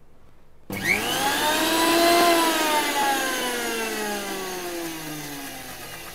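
Sujata mixer grinder's motor run in one short pulse with its steel jar: the whine starts suddenly about a second in, rises quickly in pitch, then falls slowly and fades as the motor coasts down.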